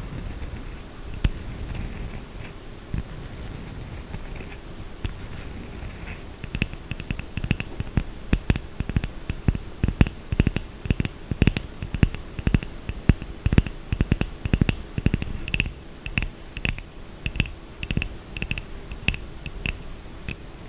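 Fingernails scratching softly on soap, then tapping on it quickly and sharply from about six seconds in, several taps a second, each with a short bright ring.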